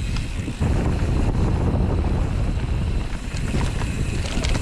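Mountain bike riding along dirt singletrack, with wind rushing on the microphone, tyre noise and scattered clicks and rattles from the bike over the rough ground.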